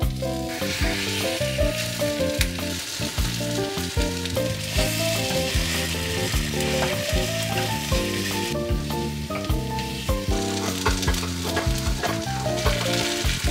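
Takoyaki batter sizzling in a hot takoyaki pan as the balls are turned with chopsticks, starting about half a second in. Background music plays underneath.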